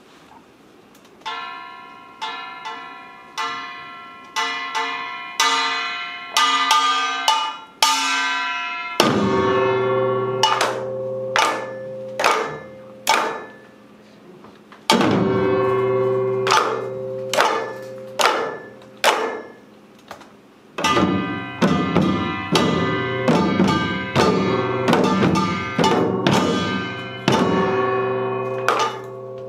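Korean samul nori gongs: a small brass gong (kkwaenggwari) struck in single ringing strokes that come faster and faster, then a large gong (jing) rings out deep and long about nine seconds in and again about every six seconds, under continuing quick strokes.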